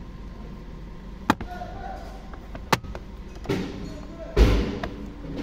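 Flat-blade screwdriver clicking and knocking against the back of a Toyota RAV4's steering wheel as it is pressed into the lock hole to release the airbag catch: two sharp clicks, then two duller knocks, the second the loudest.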